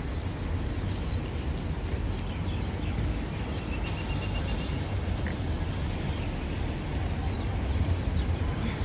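Many small birds chirping in short, scattered calls over a steady low rumble.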